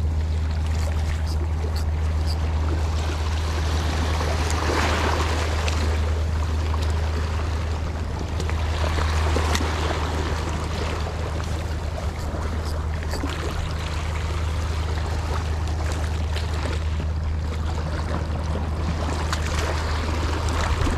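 Water sloshing and lapping, with scattered small splashes, over a steady low hum.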